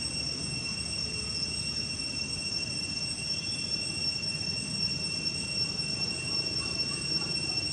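Steady high-pitched insect drone holding one pitch without a break, over a low rumble.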